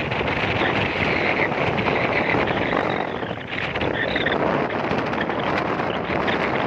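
Wind rushing over the microphone with road noise from a vehicle travelling at speed along a highway: a steady, loud rushing hiss, dipping briefly about halfway through.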